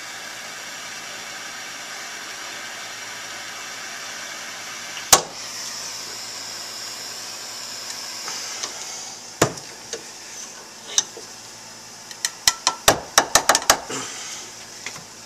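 A blowtorch flame hissing steadily as it heats a motorcycle suspension linkage rocker to loosen a pressed-in bearing. Sharp metallic clicks cut in twice, then a quick run of clicks near the end.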